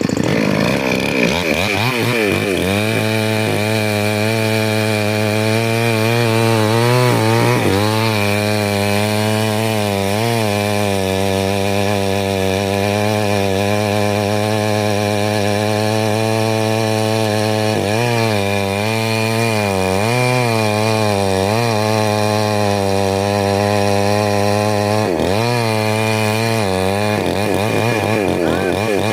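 Two-stroke chainsaw running at high speed while cutting into a tree. Its engine pitch sags and recovers several times as the chain bites into the wood under load.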